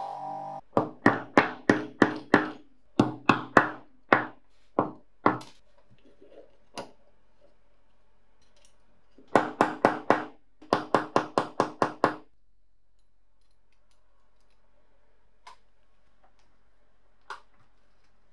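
Repeated hammer taps in two quick runs of about a dozen strikes each, three to four a second, with a single knock between them; each strike has a short ring.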